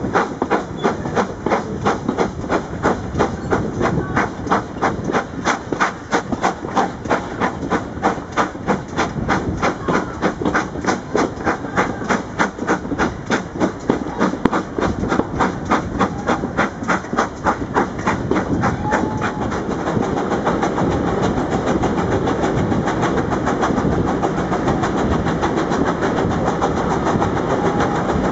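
Steam locomotive exhaust beats at the head of the train, a fast, even chuffing heard from an open carriage window. About two-thirds of the way through, the beats give way to a steady roar as the train runs into a tunnel.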